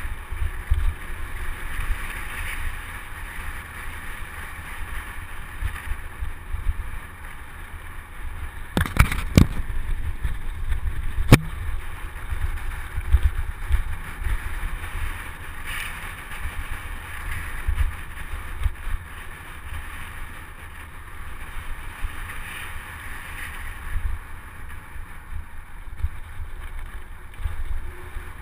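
A mountain bike riding fast over a dirt forest trail: tyre rumble and frame rattle mixed with wind buffeting the microphone. A few sharp knocks from the bike about a third of the way through.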